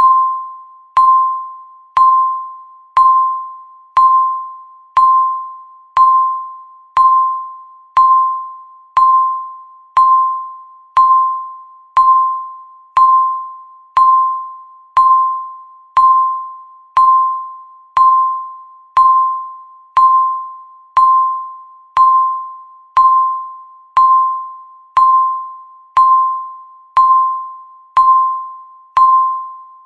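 Countdown timer's per-second ding: a single clear, high tone struck once every second, each starting sharply and fading away before the next.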